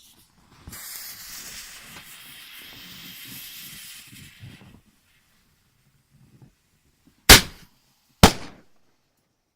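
A lit firework fuse hisses steadily for about four seconds, then after a short pause the firework fires two loud shots about a second apart.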